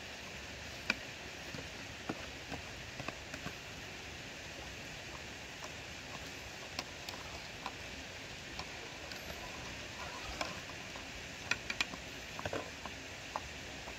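Steady rush of a mountain stream, with irregular sharp clicks and knocks scattered over it, a cluster of the loudest near the end.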